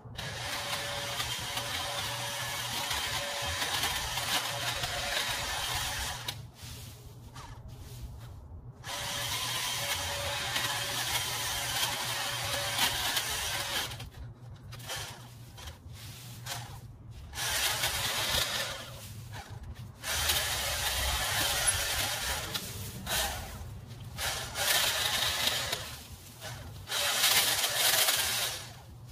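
Handheld power trimmer cutting back an overgrown bush, running in bursts of a few seconds with brief pauses between, over a steady low hum.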